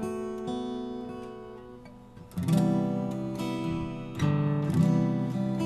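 Acoustic guitar playing a slow instrumental introduction: single picked notes that fade away, then louder strummed chords starting a little over two seconds in.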